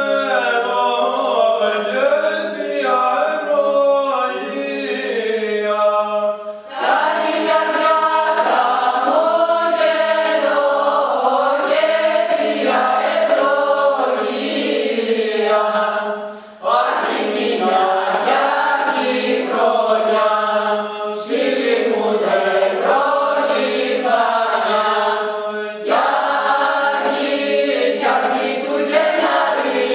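Mixed choir singing Greek Christmas carols (kalanta) unaccompanied, with brief breaks between phrases about 7 and 17 seconds in.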